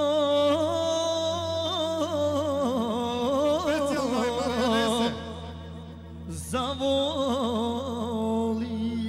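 A man singing a long, heavily ornamented, wavering melodic line through a microphone and PA, over a steady low hum. The voice drops away about five seconds in and comes back a second and a half later.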